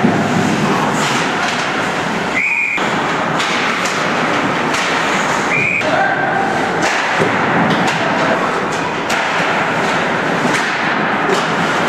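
Ice hockey play on the rink: a steady scrape of skates on the ice, broken by many sharp clacks and thumps of sticks and puck.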